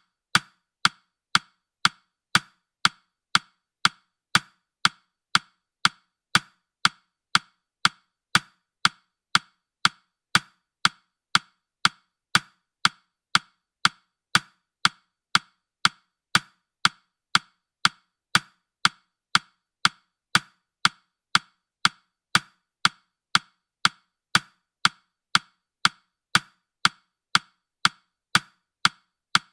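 Countdown timer's ticking sound, a steady run of sharp, evenly spaced clock-like ticks that marks the seconds running down.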